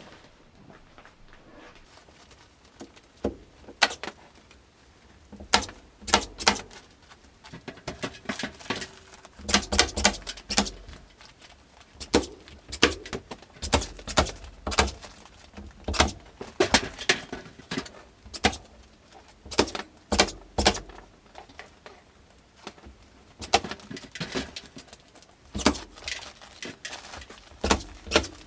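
Irregular clicks, clinks and knocks of small metal hardware and tools being handled, in scattered clusters with short pauses between.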